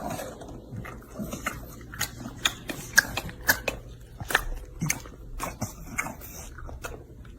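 A dog chewing, with sharp, irregular crunching clicks about two or three times a second.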